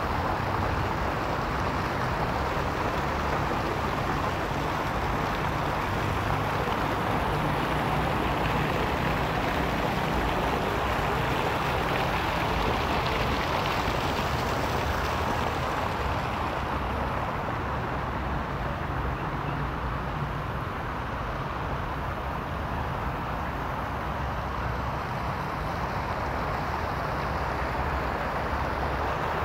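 Fountain jets splashing into a stone basin, a steady rushing spatter of water, over a low rumble of city traffic.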